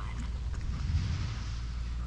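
Wind rumbling on the microphone, with soft scraping and squelching of wet mud as a plaster cast of an animal track is worked loose from the ground.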